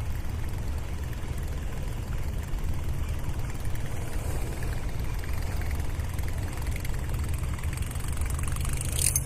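Steady low rumble of wind buffeting an outdoor microphone, with a brief clatter near the end.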